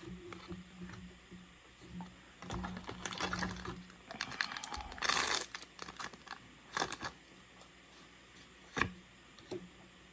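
Trading card booster pack being handled and opened: scattered clicks and soft crinkling of the foil wrapper and cards, with a short louder rasp about halfway through.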